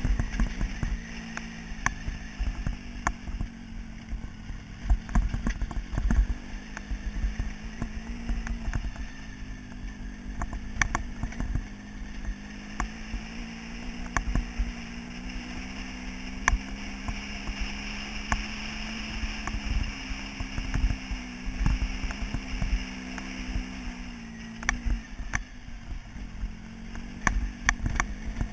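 Motorcycle engine running at steady moderate revs while riding a gravel track. Its note rises a little in the middle and eases back near the end, under low wind rumble on the microphone and scattered sharp clicks and knocks from the rough, stony surface.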